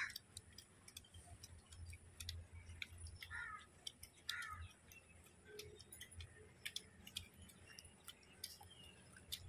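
Faint clicks and smacks of people chewing and eating with their hands, with two short, faint calls about three and a half and four and a half seconds in.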